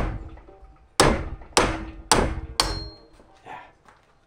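Four hammer blows, about half a second apart and starting about a second in, struck on a Prius electric power steering column assist unit clamped in a vise to drive a part off it. Each blow leaves a short metallic ring.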